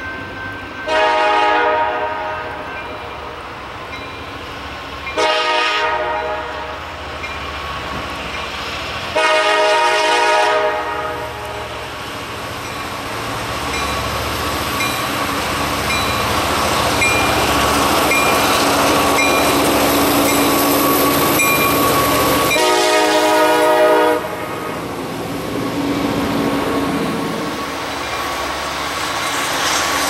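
CSX freight train's diesel locomotive sounding its horn for a grade crossing: four blasts, the second one short. The locomotive engines and rolling wheels grow louder as the train approaches and passes, with a crossing bell dinging steadily underneath.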